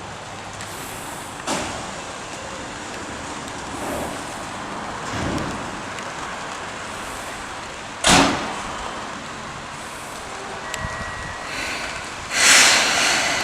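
Train sounds at a station: steady rumbling noise broken by two sharp knocks, the second louder, about eight seconds in, then a loud burst of hissing near the end.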